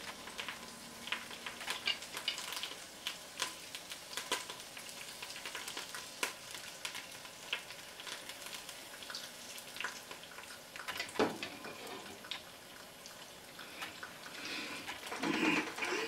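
Asparagus and other vegetables sizzling in a nonstick frying pan: a steady crackle with scattered pops, and a louder burst about eleven seconds in.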